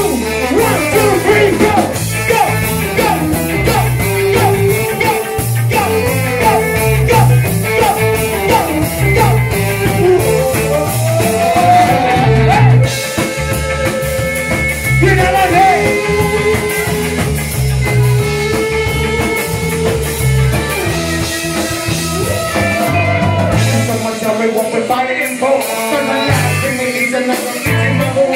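Live band in full swing: trombone and saxophone horn lines over electric guitar, bass and drums, with a singer on the microphone. The bass and drums drop back briefly near the end.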